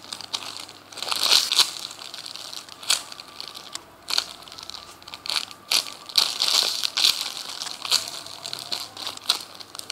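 Clear plastic packaging bag crinkling and crackling in irregular bursts as a foam donut squishy inside it is handled and squeezed.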